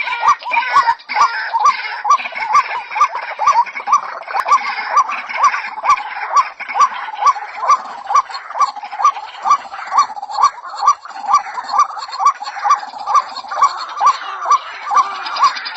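White-breasted waterhen calling: a steady run of repeated call notes, about two to three a second, with a busier chatter of higher notes behind them.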